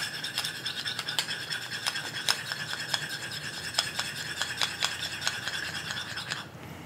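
Metal spoon stirring a little thin dressing in a small ceramic bowl, scraping around the inside with irregular light clinks against the sides; the stirring stops near the end.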